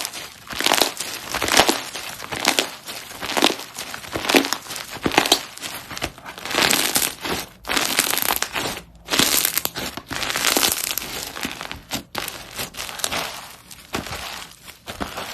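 Slime being squeezed and worked by hand, giving a dense run of crackling, crunching pops in irregular bursts, with brief pauses about nine and twelve seconds in.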